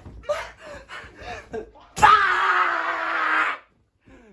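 A person's voice: brief bits of talk or laughter, then about two seconds in a loud scream whose pitch falls steadily, lasting about a second and a half and stopping abruptly.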